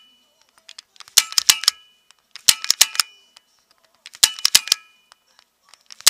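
An impact punch-down tool snapping repeatedly as it seats cat5e wires into the insulation-displacement terminals of a jack: three quick runs of sharp snaps, each with a short metallic ring, about a second and a half apart. Each wire is punched more than once.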